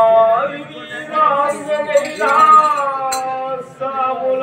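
A singer's voice holding long, bending notes in a sung passage of a Telugu folk drama, with one long note sliding slightly downward near the middle. A brief sharp click about three seconds in.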